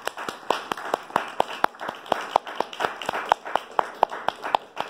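A small audience clapping, with individual sharp claps standing out over the rest.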